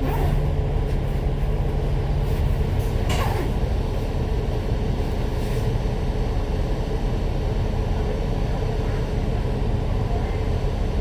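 Citybus bus running on route with a steady engine and road rumble, and a short hiss about three seconds in.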